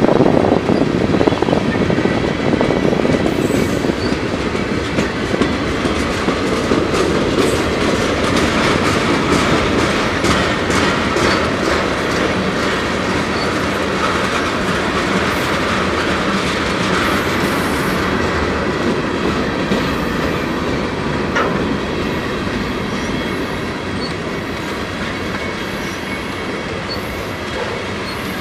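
Cars of a mixed freight train (tank cars, boxcars and covered hoppers) rolling past at trackside: a steady wheel-on-rail rumble with clickety-clack over the rail joints, growing gradually quieter toward the end.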